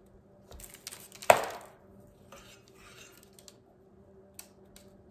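A small bath bomb mold scooping powdery bath bomb mixture out of a glass measuring cup, clattering against the glass with one sharp ringing clink about a second in, then soft gritty scraping and a couple of light taps near the end.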